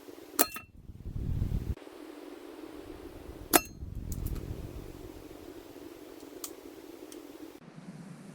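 Hatsan Mod 25 break-barrel spring air pistol firing. Two sharp cracks about three seconds apart, the second louder, each followed by a short low rumble.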